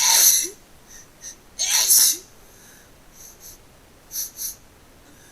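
A person sneezing twice in quick succession, each a sharp burst of breath with a short vocal cry; the second comes about two seconds after the first. Softer short noises follow in pairs about three and four seconds in.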